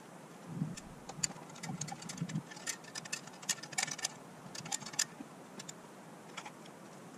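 A run of irregular sharp clicks and light taps lasting about four seconds, with a few soft low knocks in the first couple of seconds and one more click near the end.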